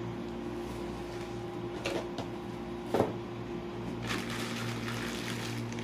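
A steady low hum with light rustling of plastic wrapping and cardboard, and a couple of soft knocks about two and three seconds in, as items are handled inside a cardboard shipping box.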